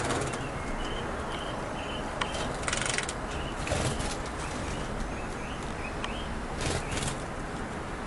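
A canary splashing in a plastic bird bath and fluttering its wings, in several short bursts of splashing and flapping. Short, high chirps from birds in the aviary repeat in between.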